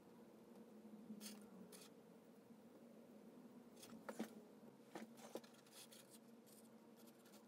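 Faint brushing of a paintbrush laying white paint onto a sculpture: a few soft scratchy strokes about a second in and again later, with a few light taps around four to five seconds in, over a low steady room hum.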